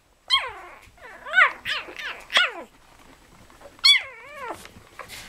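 Spitz puppies barking in high-pitched, short calls that fall in pitch: five quick ones in the first few seconds, then one longer, wavering call about four seconds in.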